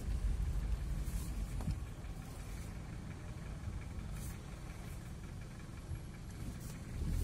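Low, steady rumble of a car's engine and running noise heard from inside the car. It eases about two seconds in and swells again near the end.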